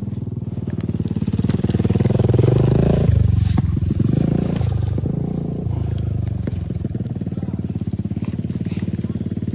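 Motorcycle engine running under way, the revs climbing over the first three seconds and dropping abruptly about three seconds in, then running steadily.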